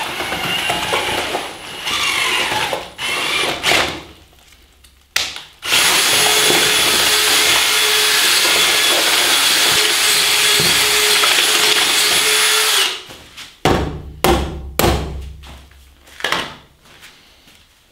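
Cordless drill with a paddle mixer stirring cement plaster mortar in a bucket: a few short bursts, then a steady run of about seven seconds at constant speed. A few knocks follow near the end.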